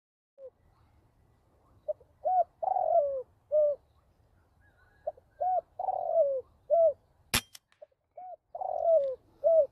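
Spotted dove (tekukur) cooing: three repeated phrases of short arched notes with a longer falling note in each. A single sharp click cuts in between the second and third phrases.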